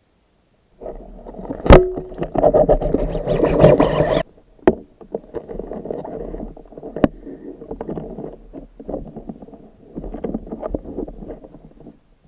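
Water sloshing and splashing close to the camera, with a few sharp knocks: a loud one about two seconds in, then others near four and a half and seven seconds.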